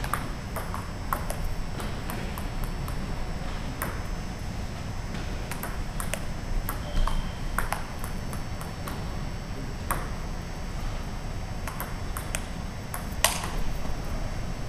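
Table tennis rally: the ping-pong ball clicking off rubber paddles and bouncing on the table in quick, irregular exchanges, over a steady low hum.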